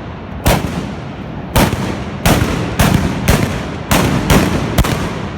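Trabucs, the black-powder blunderbusses of the trabucaires, firing blank shots in a ragged volley. There are about eight sharp shots in five seconds, at uneven spacing, each leaving a lingering echo.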